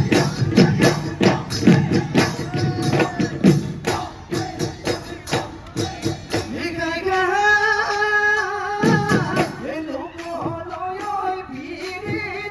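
Live Bihu folk music: fast drumming with jingling percussion through the first half, then a long held note about seven seconds in, followed by singing.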